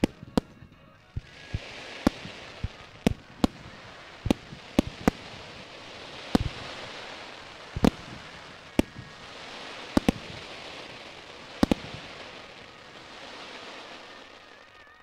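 Aerial fireworks shells bursting in an irregular series of sharp bangs, some in quick pairs. A hiss swells and fades between them every few seconds.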